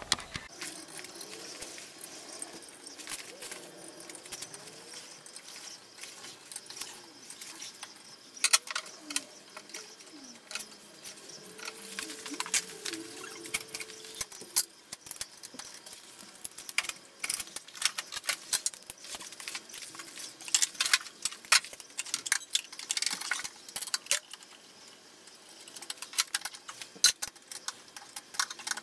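Steel hand tools clinking and clicking: sockets rattling on a socket rail, and a ratchet wrench being worked on the bolts that hold the pedestal to the lathe bed. The clicks come in scattered sharp runs, thickest in the second half.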